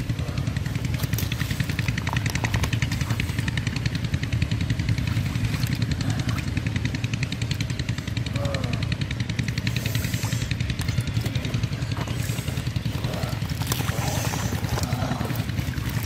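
An engine running steadily at constant speed: a low drone with a fast, even pulse that does not change.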